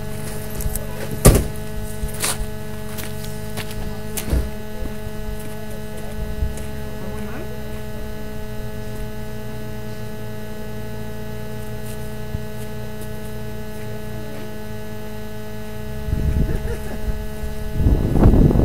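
A steady hum of several fixed tones, with sharp clicks about one, two and four seconds in; a low rumbling noise comes in near the end.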